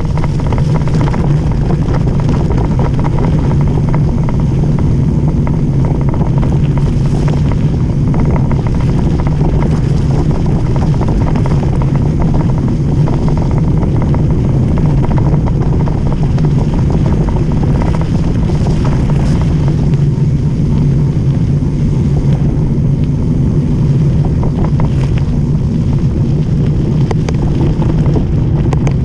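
Steady rush of wind over the microphone and tyres rolling on a gravel dirt road as a Cannondale mountain bike descends at speed, with occasional light rattles from the bike over the stones.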